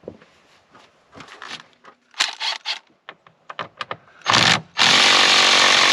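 A handheld power tool running in two bursts, a short one and then a longer steady run near the end, after a few seconds of knocks and clicks from handling parts.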